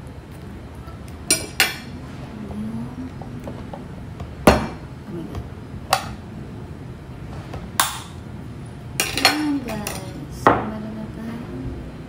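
Dishes and cutlery clinking and knocking in about eight separate sharp strikes, the loudest about four and a half seconds in.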